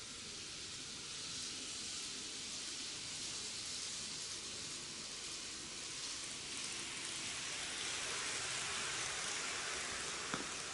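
N-gauge model trains running on the track: a steady rolling hiss from wheels and motors that grows louder as the two trains pass close by. There is a single sharp tick near the end.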